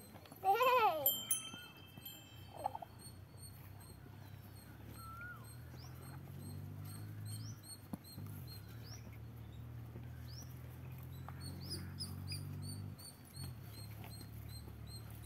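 A short, loud, wavering high-pitched squawk of a fowl about half a second in, with a smaller call soon after. Small birds chirp throughout, and a low steady hum runs through the middle.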